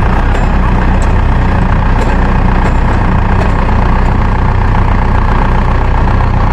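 Diesel engine of a rice combine harvester running steadily at constant speed.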